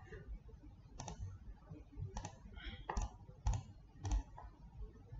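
A computer mouse clicking sharply about six times, at irregular intervals of roughly a second.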